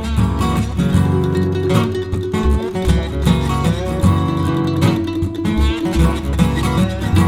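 Background music with plucked, strummed guitar over a steady bass line.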